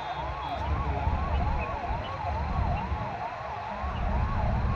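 Convoy escort vehicle's electronic siren in a fast yelp, its pitch sweeping up over and over about two to three times a second, over the low rumble of passing vehicles.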